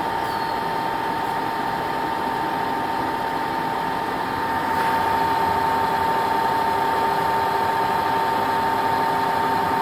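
Clausing Kondia FV-1 vertical milling machine running with a steady whine. About halfway through it gets a little louder and a second, lower tone joins in.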